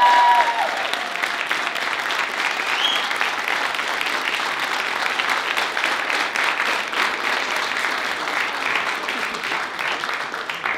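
Audience applauding, a steady patter of many hands clapping, with a whoop held briefly at the start.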